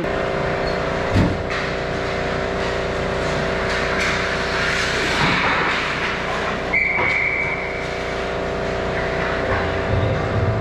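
Ice hockey play heard from a camera on the goal net: skate and stick noise with a sharp knock about a second in and a few lighter knocks, over a steady multi-tone hum. A short high tone sounds near the seven-second mark.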